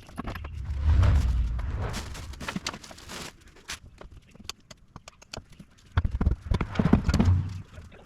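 Clunks, knocks and scraping of a heavy engine being handled and shifted, in two bouts: one starting about a second in, and another about six seconds in, with a deep rumble under the knocks.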